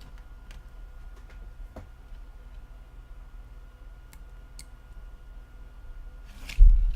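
Scattered light clicks and ticks from small phone parts and tools being handled, over a steady low hum, with one dull thump near the end.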